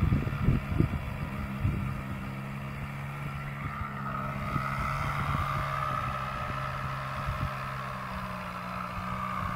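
Small engine of a model airplane idling steadily as the plane is carried out to the runway, with a higher note coming in about halfway through. Wind thumps on the microphone in the first couple of seconds.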